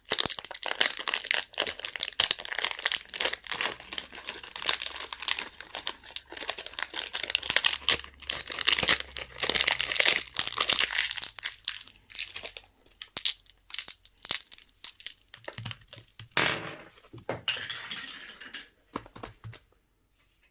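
Candy wrappers crinkling and tearing as they are unwrapped by hand: a dense, rapid crackle for about twelve seconds, then thinning to scattered rustles that stop shortly before the end.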